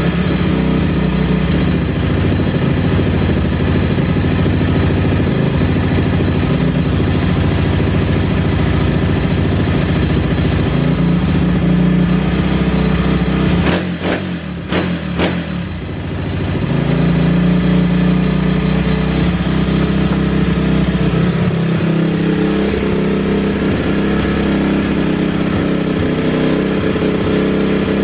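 Fire-damaged MRF pit bike's single-cylinder four-stroke engine running, its pitch rising and falling. About halfway it falters for a couple of seconds with a few clacks, then picks up again. It runs unevenly, which the owner puts down to melted wiring rigged up temporarily and a carburettor that may be partly clogged.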